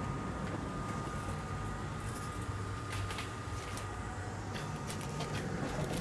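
Steady fan-like hum of repair-bench equipment with a faint high tone over it, and a few light clicks and rustles from about two seconds in as parts are handled.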